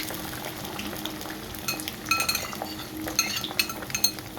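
Metal cutlery clinking against a dish: a run of short, ringing clinks in the second half, several in quick succession.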